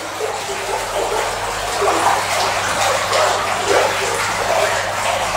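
Water pouring from a hose into a flood-test tank as it is filled, a steady splashing rush, with a faint low hum underneath.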